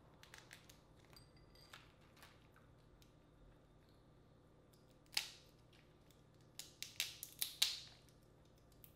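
Boiled crawfish shells cracking and snapping as they are peeled by hand: a few faint clicks, then one sharp crack about five seconds in and a quick run of sharp cracks shortly after.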